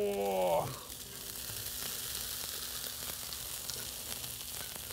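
Steady sizzling of hot grease and food on a flat-top griddle as a large hash brown is lifted off it. A short voice-like sound with a bending pitch comes in the first second.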